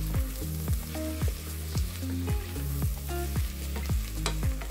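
Sliced onions sizzling in butter and olive oil in a stainless steel pot, stirred with a wooden spoon. Background music with plucked notes and a steady beat of about two strokes a second plays over it.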